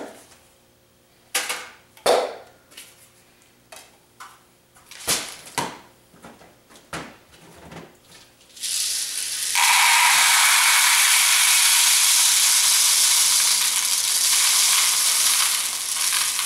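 Light clicks and knocks of plastic tubs being handled, then, about eight and a half seconds in, a loud steady rattling hiss of BBs poured from a plastic bottle into a plastic tub. The pour runs about eight seconds and stops just before the end.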